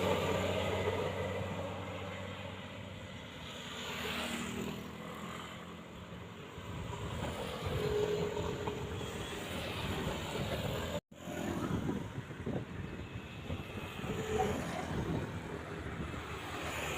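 Roadside traffic: a heavy vehicle's engine loud at first and fading away over the first few seconds, then the noise of further passing traffic, with a short steady tone near the middle. The audio cuts out abruptly for a moment about two-thirds of the way through.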